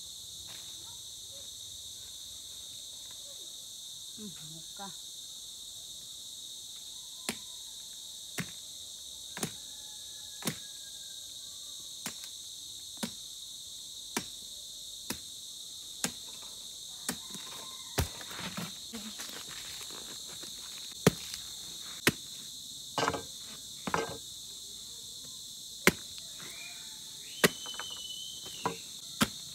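A knife chopping into a jackfruit: sharp strikes about once a second, over a steady high drone of insects.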